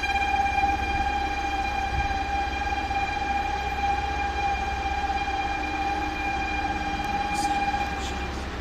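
Station platform departure buzzer sounding one steady, buzzy tone that cuts off near the end.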